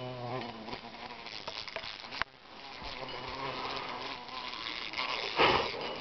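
A flying insect buzzing in a steady low drone that breaks off just after the start and comes back faintly later. A sharp click comes about two seconds in, and two loud rough scrapes come near the end.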